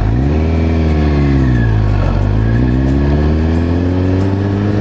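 Motorcycle engine under way, accelerating with its pitch rising, dropping back about two seconds in, then climbing again.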